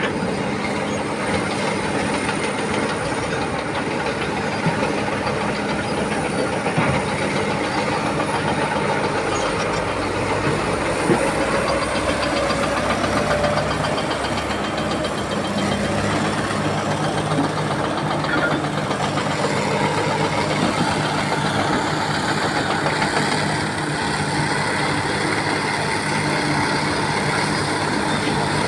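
Heavy diesel engines of a Komatsu PC300 hydraulic excavator and the dump truck it is loading, running steadily under work.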